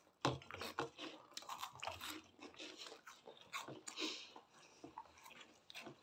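Several people crunching and chewing cheese balls, with many short, irregular crunches overlapping.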